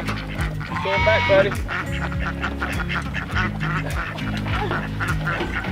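Ducks quacking, loudest about a second in, over steady background music, with scattered light knocks.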